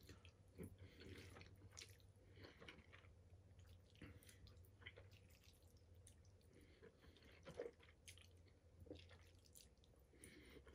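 Faint wet chewing and mouth sounds of a person eating soft noodles in sauce, with small irregular clicks, over a low steady hum.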